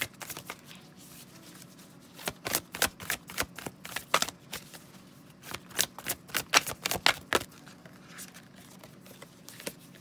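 A Moonology oracle card deck being shuffled by hand: two spells of quick card slaps and riffles, each about two seconds long, the first about two seconds in and the second about five and a half seconds in.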